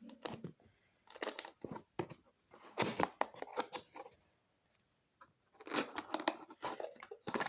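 Keys of a Mad Dog computer keyboard clicking in quick bursts of several presses, with short pauses between the bursts.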